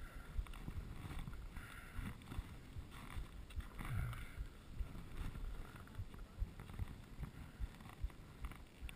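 Wind rumble and irregular low thumps on a GoPro camera's microphone while a skier stands and shuffles on the snow, with a few brief scraping hisses.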